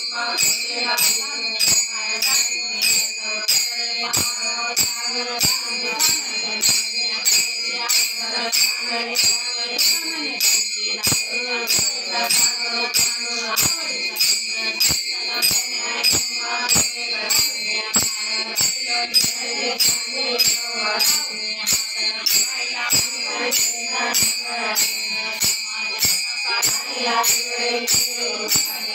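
Bhajan devotional singing over a steady jingling metal percussion beat, about two strokes a second.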